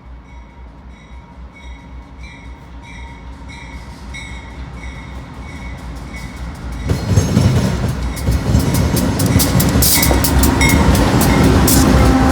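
A train approaching and passing close. A bell dings steadily about one and a half times a second while the train's noise slowly grows. About seven seconds in, the train arrives loudly with wheel rumble and clatter.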